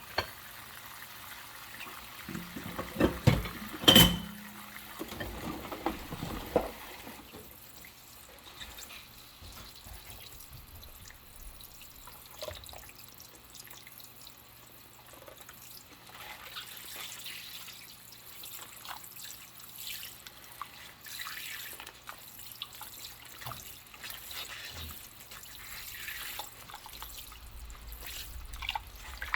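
Dishes being washed by hand at a sink with water running and dripping. A few loud clatters of dishware knocking together about three to four seconds in, one ringing briefly, then quieter scrubbing and rubbing sounds with drips.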